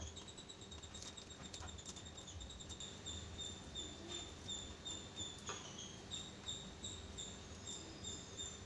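Insect chirping in a fast, even, high-pitched pulse, with a few faint crackles as the charred skin of a fire-roasted brinjal is peeled off by hand.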